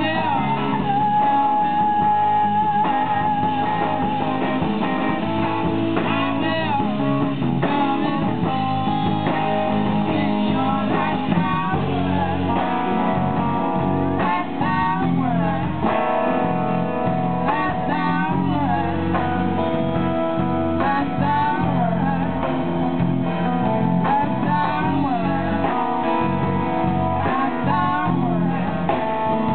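Live blues band playing: guitars, bass and drum kit, with a woman singing into a microphone.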